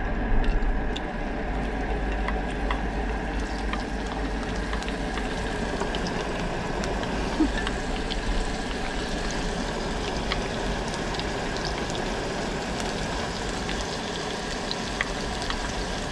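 Chopped green onions sizzling on a hot griddle pan: a steady hiss with many small crackles and pops.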